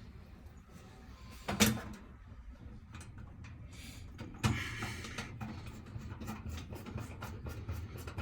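Knocks of a metal panel part being handled, then a screw being driven in, with a low steady hum and a run of small regular clicks.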